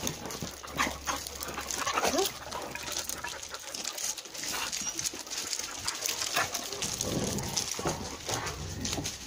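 Dogs whining and whimpering close by, in short calls that slide up and down in pitch, with scattered short clicks between them.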